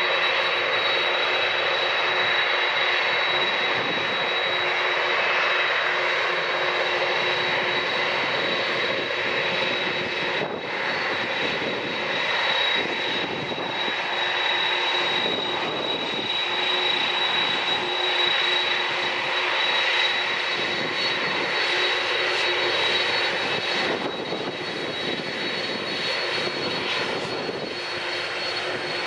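Boeing 747-400 freighter's four turbofan engines at taxi power as the jet taxis close past: a steady jet whine with a constant high tone, easing slightly near the end.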